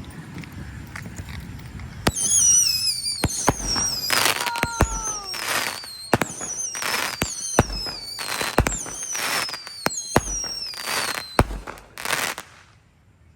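Consumer fireworks going off in quick succession: sharp bangs and crackling bursts about once a second, mixed with high whistling tones that slide down in pitch. They start about two seconds in and stop suddenly near the end.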